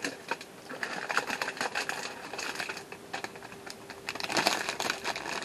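Clear plastic bags of model kit parts being handled, crinkling and rustling with many small rapid clicks.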